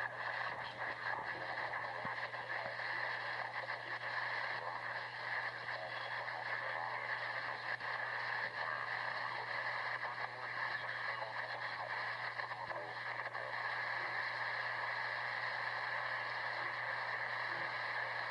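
Shortwave radio receiver tuned to 3700 kHz, putting out a steady rush of static and hiss with faint crackles over a low, steady hum.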